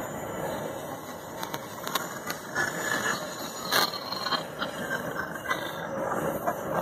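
Empty iron-ore gondola cars of a freight train rolling past on the rails, a steady wheel rumble with irregular sharp metallic clanks and knocks from the cars, the loudest about four seconds in.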